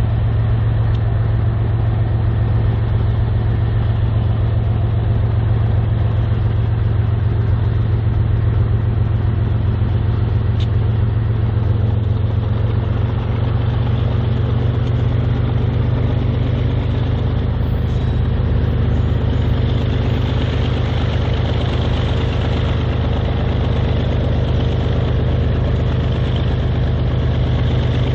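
BNSF diesel locomotives' engines running steadily as the units work slowly forward at the head of an oil train, a deep steady drone. About two-thirds of the way through a higher hiss grows louder as they draw nearer.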